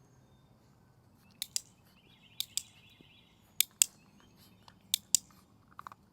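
Hand-held dog training clicker pressed four times, each a sharp double click (press and release) about a second and a quarter apart, marking food rewards for a puppy while the clicker is being loaded.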